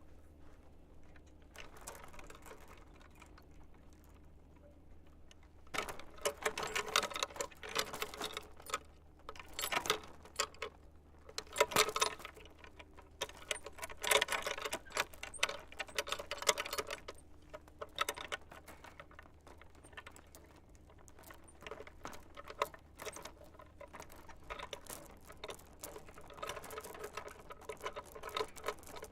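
Swing chains rattling and clinking as the swing moves, in surges that come every second or two, louder in the first half and softer later on.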